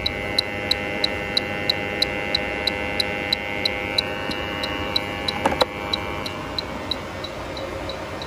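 Bacharach H-10 Pro heated-diode refrigerant leak detector ticking evenly at about three ticks a second, over a steady hum. This slow, unchanging rhythm is what the detector keeps when it senses no refrigerant. There are a couple of knocks about five and a half seconds in.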